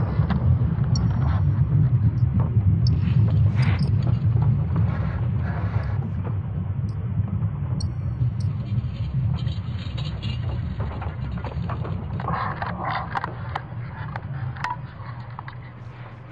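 A low rumble that slowly fades away, with a few faint clicks and taps over it.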